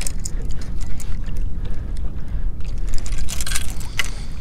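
Low, steady rumble of wind buffeting the microphone, with light splashing and sloshing of water as someone wades through knee-deep shallows; a louder splash comes a little after three seconds in.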